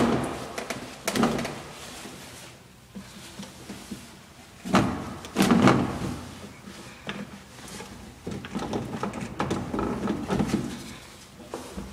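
Irregular knocks and rattles echoing in a small tiled room. There are louder clunks about a second in and twice around the middle, then a run of smaller clicks and rattles over the last few seconds.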